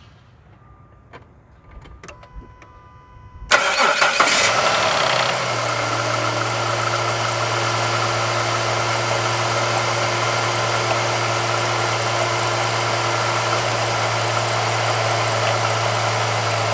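A few soft beeps and clicks, then about three and a half seconds in, the 2005 Jeep Liberty's 3.7-litre V6 cranks, starts and settles into a steady idle. Running under the idle is the noise of an alternator pulley with bad bearings.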